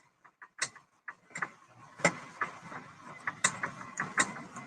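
Irregular sharp clicks and taps, a few a second, over a faint hiss that comes up after about a second.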